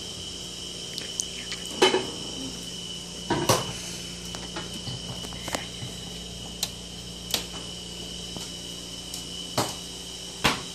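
Knocks and clicks of a refrigerator door being opened, a plate being set on a shelf inside, and the door being pushed shut near the end. The loudest knocks come about two and three and a half seconds in, over a steady high-pitched tone.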